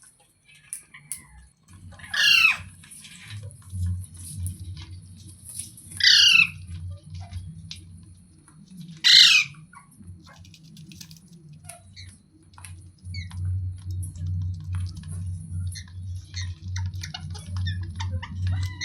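A parrot gives three loud, harsh squawks a few seconds apart, each sweeping downward in pitch, with a low steady hum underneath.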